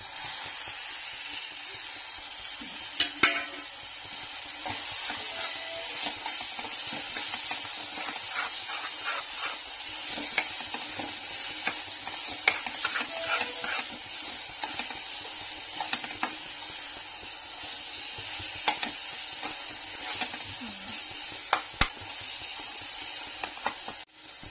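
Mashed roasted eggplant being stirred into frying onion-tomato masala in a steel pan: a steady sizzle under the scraping of a perforated metal spoon against the pan, with a few sharp knocks of the spoon on the pan now and then.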